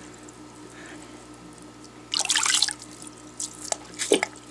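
An AquaClear hang-on-back filter's foam sponge being squeezed out by hand in a bucket of dirty tank water: a gush of splashing water about two seconds in, then a few smaller splashes and drips.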